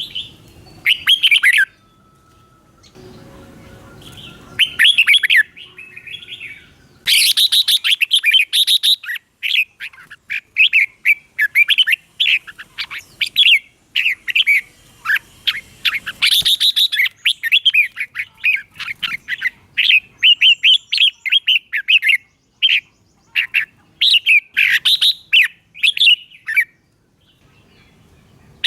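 Red-whiskered bulbul singing: short, quick, warbling phrases repeated with brief gaps, sparse at first and then coming almost continuously from several seconds in.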